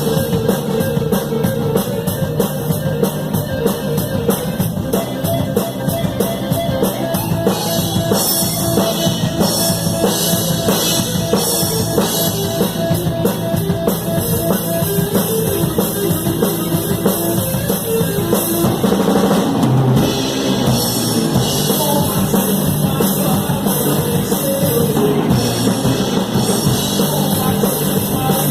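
A rock band playing live, heard from right at the drum kit, so the drums are loudest: kick drum and snare drive a steady beat. Fast, even cymbal strokes run through the first several seconds.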